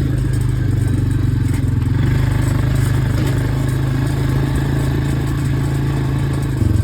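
Engine of a ride-on farm vehicle running at a steady speed while it is driven.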